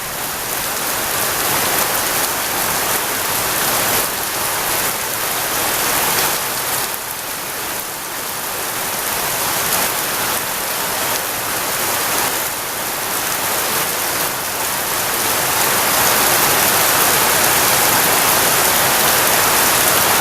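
Heavy rain falling steadily, a dense hiss of drops that grows a little louder about three-quarters of the way through.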